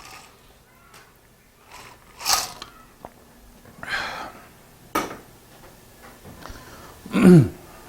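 A person's breathing and sniffing in a small quiet room: a couple of short breaths, one sharp click about five seconds in, and a short throat sound falling in pitch near the end.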